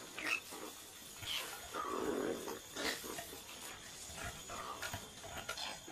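Male koalas fighting: harsh grunting and snarling calls, the strongest about two seconds in, with a few sharp knocks and scuffles.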